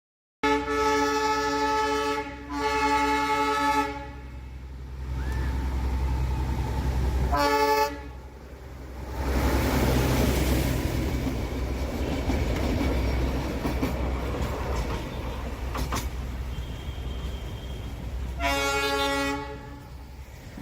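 Darjeeling Himalayan Railway narrow-gauge toy train sounding its horn four times: two long blasts one after the other near the start, a short one about seven seconds in, and another near the end. Under the blasts is the steady rumble of the train running.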